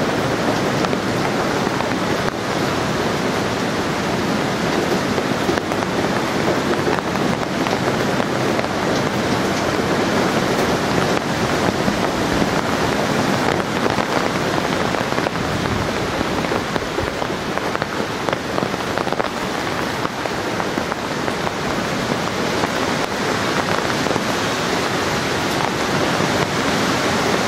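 Hurricane Sandy's wind blowing through a stand of trees, with rain falling, as a steady rushing noise that swells a little with the gusts.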